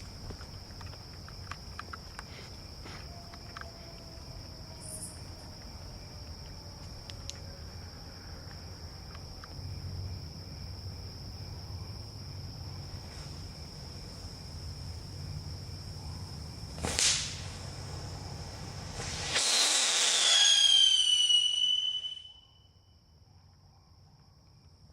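Small consumer fireworks going off: a sharp crack about two-thirds of the way in, then a loud hissing, crackling whistle whose pitch falls for about two seconds before it cuts off suddenly.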